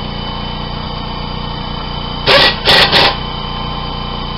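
Air compressor running with a steady drone, while an air impact wrench fires three short bursts in quick succession a little past two seconds in, tightening a brake caliper bracket bolt.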